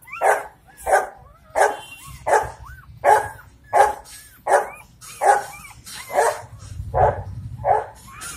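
An adult dog barking steadily, about one bark every 0.7 seconds. In the first half, thin high squeals from newborn puppies fall between the barks.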